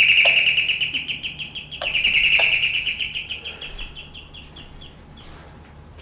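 A high-pitched, rapidly warbling trill that breaks off briefly about two seconds in, starts again, then fades away after about five seconds, with a few faint knocks.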